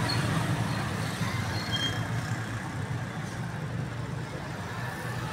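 Road traffic: a motor vehicle's engine running with a steady low hum under general street noise.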